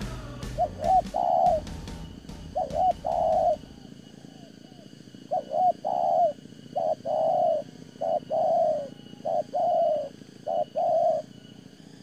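Spotted dove cooing: a run of repeated phrases, each a couple of short notes followed by a longer coo, coming closer together in the second half.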